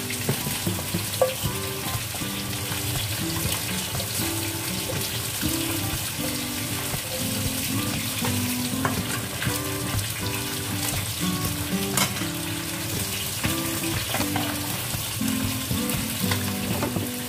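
Vinegar-and-water paksiw broth boiling in an earthenware pot, a steady bubbling sizzle with a few sharp clicks as bitter melon pieces are laid in. Soft background music with a stepping melody plays underneath.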